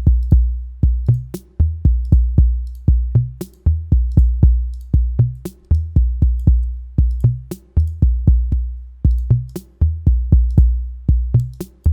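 Arturia DrumBrute analog drum machine playing a looped beat: deep, booming kick drums with sharp, bright clicks over them, the pattern repeating about every two seconds.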